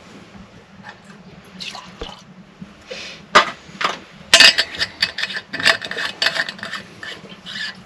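Liquid poured from a stainless steel flask into a metal cup, then a run of sharp metallic clinks and clicks as metal cups and a cocktail shaker are handled. The loudest clicks come about three and a half and four and a half seconds in.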